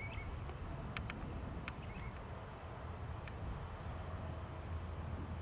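Outdoor ambience: a steady low rumble with a few faint bird chirps and scattered short clicks.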